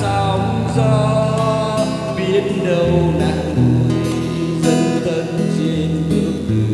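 Acoustic guitar playing an instrumental bolero passage, with held low bass notes changing every second or two beneath the melody.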